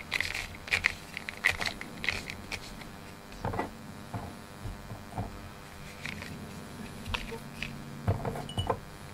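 A brush stroked through a cat's long fur: quick, short scratchy rustles, densest in the first three seconds and sparser after, with a few soft handling knocks.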